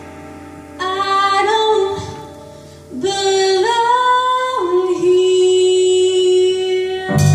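A female singer performs live with a rock band, singing two phrases of long held notes that slide between pitches over sparse backing. Near the end the full band with drums comes back in suddenly.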